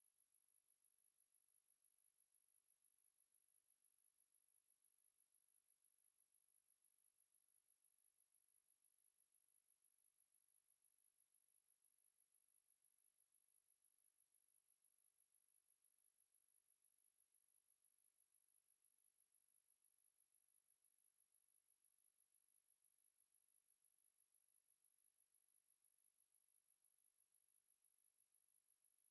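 A steady pure sine tone at 11293 Hz, a single high-pitched whistle held without change: a speaker test tone, also played to shake water and dust out of a speaker.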